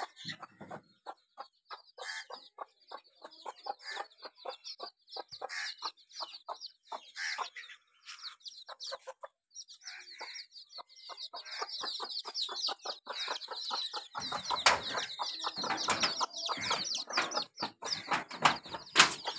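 Native hen clucking in short repeated calls among the constant high peeping of her chicks. The peeping grows denser after about ten seconds, and a few louder knocks or scuffs come near the end.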